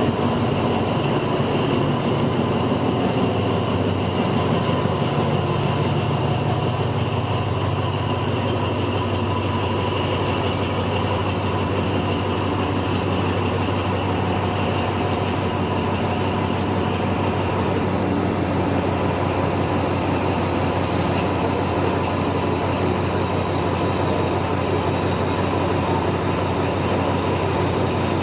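Alsthom diesel-electric locomotive's engine running steadily with a constant hum and a thin steady whine above it, the sound of a passenger train standing at or pulling out of a station.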